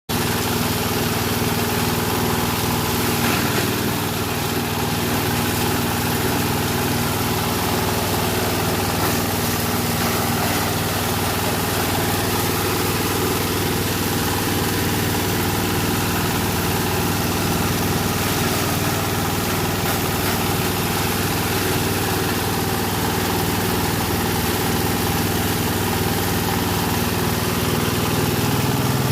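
Engine-driven multipurpose chopper-grinder (type 30RD2) running steadily while chopping dry corn stalks: a constant engine hum with a dense whirring, rushing noise from the cutter.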